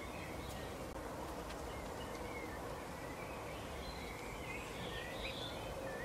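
Steady outdoor background hum with faint, high bird chirps and twitters scattered through it, more of them in the second half.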